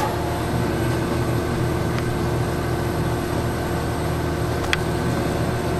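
Steady machine hum of a home-built computer water chiller running on an old beer cooler compressor, with fan whir over it. A faint click comes about two seconds in and another near the end.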